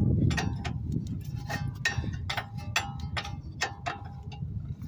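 Wrench working the ball-joint nut on a lower control arm in short strokes: sharp metallic clicks, about three a second, each with a brief ring.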